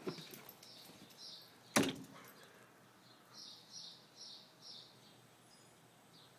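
Small birds chirping in short repeated runs, with one sharp knock about two seconds in.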